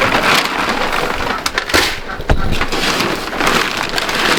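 Steady heavy rain falling, with a few sharp knocks and crackles in among it.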